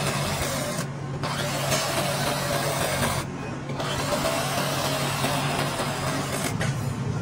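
A steady mechanical whir with a constant low hum that dips briefly twice.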